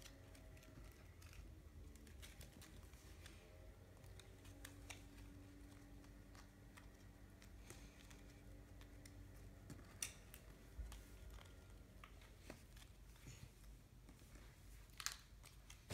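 Near silence: room tone with a few faint, scattered clicks and rustles of a printed card sheet being handled.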